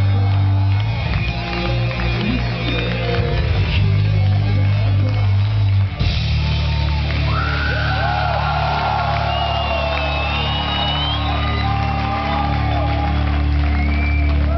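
Live metal band playing loud in a hall, with heavy bass and distorted guitar. About six seconds in, the playing breaks off onto a steady low drone, and crowd shouts and cheers rise over it.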